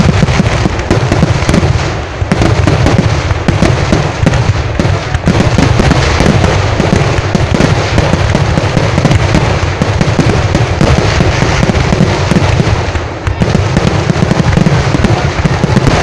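Fireworks barrage at close range: a dense, continuous volley of firecrackers cracking and banging in rapid succession, with brief lulls about two seconds in and again near thirteen seconds.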